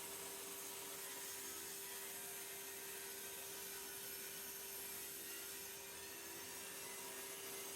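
Table saw motor running steadily with a constant, fairly quiet hum, with no cut under way.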